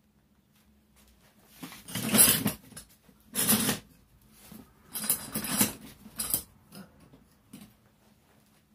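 Handling noise as a camouflage-padded swivel shooting seat is grabbed and moved: several rustling, scraping bursts up to about a second long, with a faint steady hum underneath.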